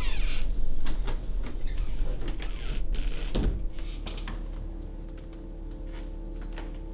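A series of light clicks and knocks, ending in a heavier thud about three and a half seconds in, then a low, steady droning hum.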